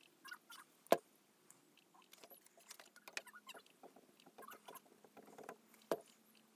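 Plastic squeeze bottle of white wood glue being pressed out onto a mitred wood end: faint crackling and squelching as the glue sputters out, with a sharper click about a second in and another near the end.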